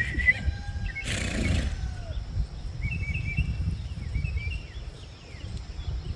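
A person whistles briefly for a horse right at the start, then birds chirp several times. Wind rumbles on the microphone throughout, with a gust or rustle about a second in.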